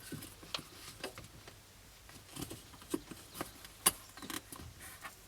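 Scattered clicks and knocks of plastic vent parts being handled and pushed into place, with one sharp knock, the loudest, about four seconds in.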